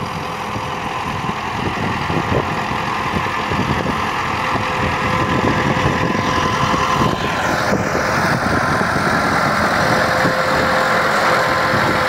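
Massey Ferguson 375 tractor's diesel engine running steadily as it pulls a mounted potato digger through the soil, growing gradually louder.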